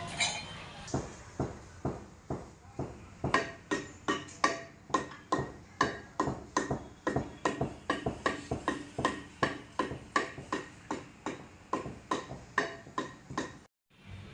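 Repeated hammer blows on metal, about three a second, each with a short ringing tail, growing louder about three seconds in and stopping abruptly near the end.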